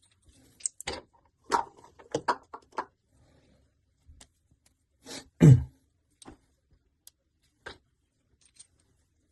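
Metal tools and brass tap parts clinking and knocking as a kitchen tap is worked on: a string of irregular sharp clicks, with one louder thump about five and a half seconds in.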